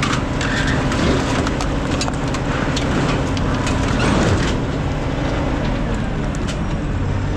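Heavy machinery engine running steadily, with scattered knocks and clanks of scrap metal.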